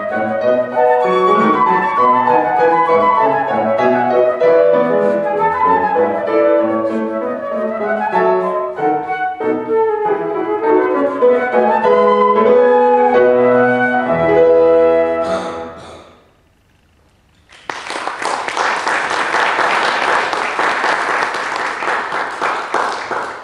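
Flute and grand piano playing the closing bars of a classical piece, ending on held notes about sixteen seconds in. After a brief pause an audience applauds steadily.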